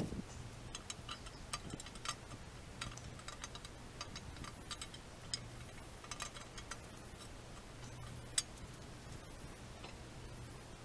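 Light, irregular metallic clicks and taps, with one sharper click about eight seconds in, as the camshaft of an AMC 232 inline-six is worked out of the engine block, its lobes knocking against the cam bearings.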